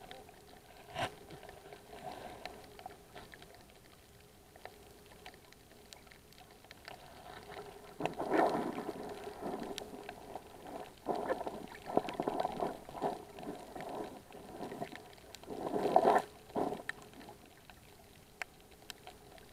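Muffled underwater sound through a GoPro's waterproof housing: water swishing and gurgling around the camera. It comes in irregular surges of a second or two, three stronger ones in the second half.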